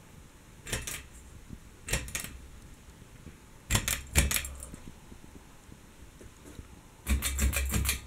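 Ceiling fan pull-chain switch clicking and its metal ball chain rattling, in four short bursts; the last is the longest and loudest, near the end.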